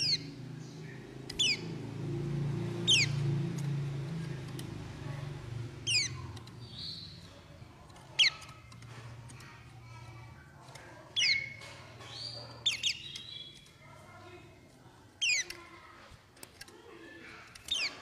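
White-eye (pleci) calls: short, sharp notes that sweep quickly downward in pitch, repeated at irregular intervals of one to three seconds, with a few fuller twittering notes midway. A low murmur lies underneath, strongest in the first six seconds.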